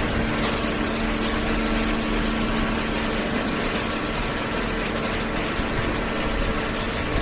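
Industrial cardboard baler running, a steady machine noise with a constant hum from its motor and hydraulic pump.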